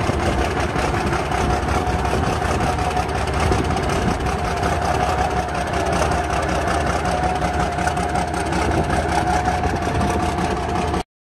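Large Cummins V-type diesel engine running steadily, with a steady high whine over the engine sound. The sound cuts off abruptly near the end.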